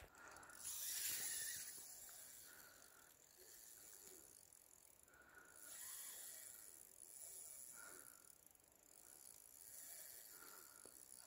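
Near silence: a faint hiss of flowing river water that swells and eases several times.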